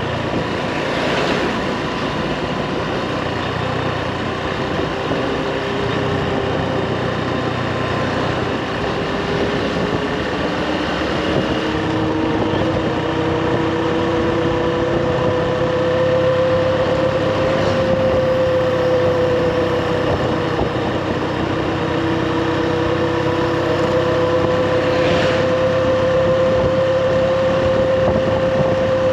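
Motorbike engine running steadily while riding, its pitch gliding gently up about halfway through and then holding steady.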